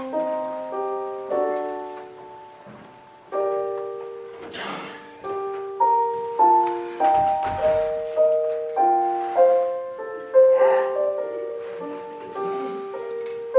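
Piano playing a slow, gentle melody over chords, each note struck and left to ring and fade, about one or two attacks a second. Two brief hiss-like noises stand out about four and eleven seconds in.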